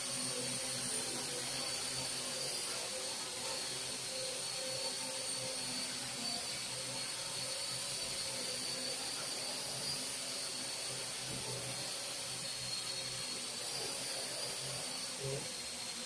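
Parrot AR.Drone 2.0 quadcopter hovering: its four motors and propellers give a steady high whine over a lower buzz, the pitch wavering slightly.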